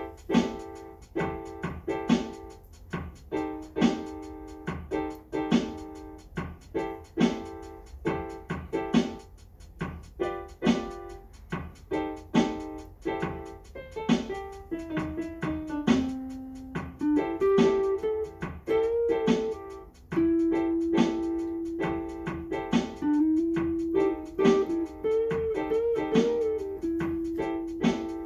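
Electric guitar played solo: an intro riff of quickly repeated picked notes, which about halfway through steps down in pitch, then turns to bent notes and a long held note with bends near the end.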